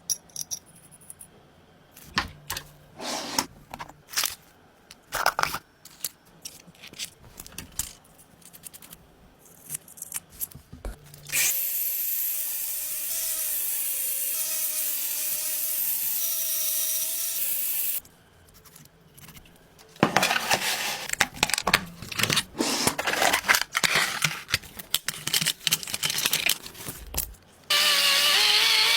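Workshop tool sounds: scattered clicks and knocks, then a power tool running steadily with a faint wavering whine for about six seconds. After it come several seconds of rapid clattering, and near the end a power tool starts again with a wavering pitch.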